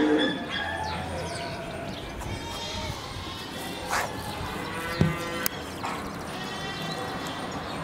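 Faint animal calls over background ambience, with a few sharp clicks about four and five seconds in.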